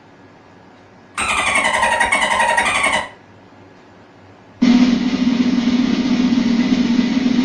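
Sound-effect clips played over home-theater speakers. First comes a two-second burst of falling, whistling tones, then after a pause a steady, engine-like droning hum.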